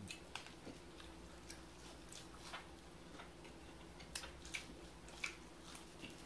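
Breaded fish sticks being chewed: faint, irregular crunches and mouth clicks, about two a second, over a low steady hum.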